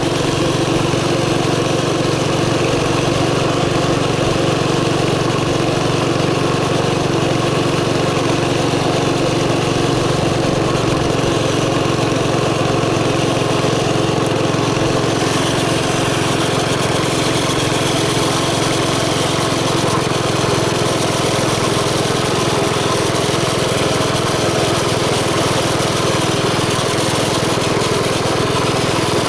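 Chinese mini bike's small engine running steadily through an aftermarket exhaust header, holding an even speed.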